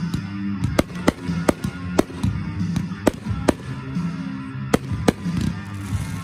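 Aerial fireworks going off in a series of sharp bangs, about nine in six seconds, over music with a stepping bass line.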